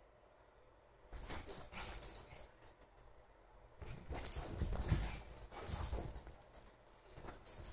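A small dog scrambling and pouncing on soft couch cushions: dull thuds with the metal tag on its collar jingling. It comes in two bouts, one starting about a second in and a louder one about four seconds in.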